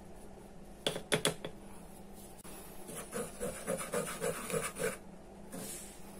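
A few sharp taps about a second in, then a wire whisk stirring dry flour in a bowl: a run of short scratchy strokes, about three to four a second, lasting about two seconds.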